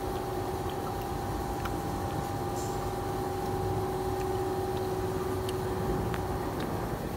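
A steady machine hum over a low rumble, with a held tone that fades near the end and a few faint clicks.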